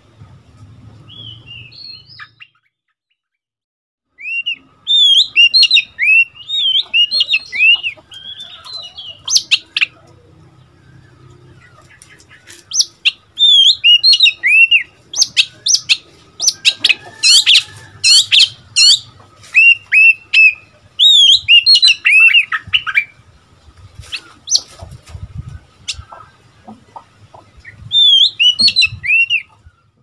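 Young male oriental magpie-robin singing loudly in quick phrases of short, sweet whistled notes mixed with rapid chattering runs. The song starts after a brief pause and continues with short gaps between phrases.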